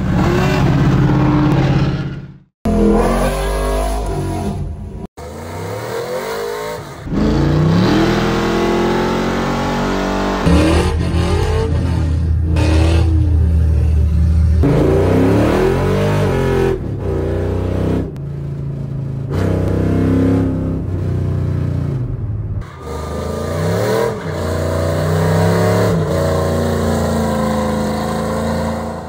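Loud car engines revving and accelerating in a string of abrupt cuts, the pitch sweeping up and down.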